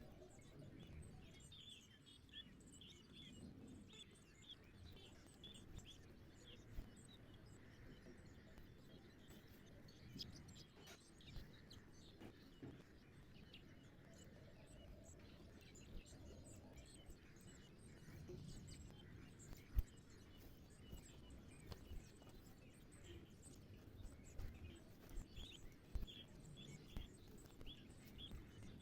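Faint sparrow chirps, short and quick, in bunches near the start and again near the end, over low steady background noise. A few soft knocks, one sharper than the rest just before the last third.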